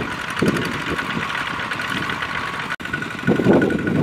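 Single-cylinder diesel engine of a two-wheel walking tractor running with a steady clatter. The sound drops out for an instant about three seconds in, then comes back louder.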